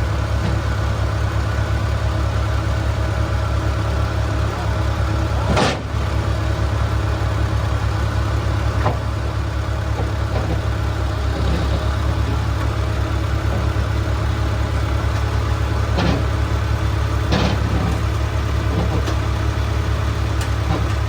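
An engine idling steadily, with a few short knocks or clanks, one about six seconds in and two more near the end.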